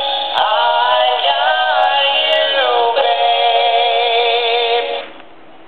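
Animated plush singing-dog toy couple performing a song in electronic voices. The song ends on a long, wavering held note that stops about five seconds in.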